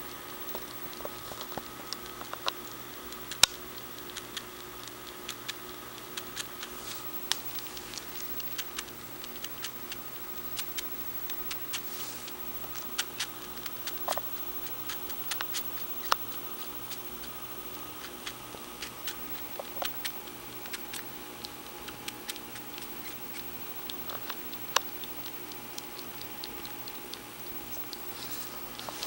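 A kitten suckling on a fleece blanket: small irregular clicking and smacking sounds from its mouth, several a second at times, with no steady rhythm.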